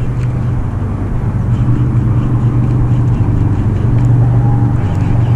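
A boat motor running steadily with a low, even hum.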